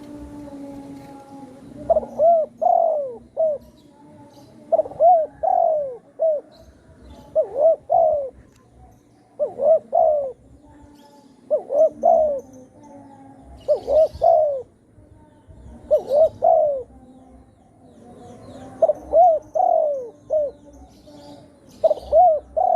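Spotted dove (tekukur) cooing: a short phrase of several hooting notes repeated about nine times, one every two to three seconds, over a steady low hum.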